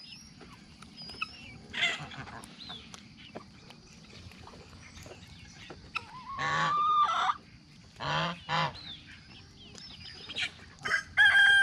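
Geese honking in several loud bouts, about 2 s, 6 to 7 s and 8 s in, and a loud, drawn-out honk near the end, over faint high chirping from the poultry flock.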